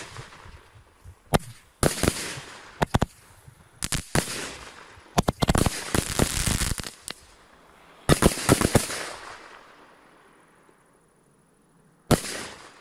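Aerial fireworks bursting overhead: a string of sharp bangs and cracks that come in bunches over the first nine seconds, each bunch trailing off, then a lull and one last bang near the end.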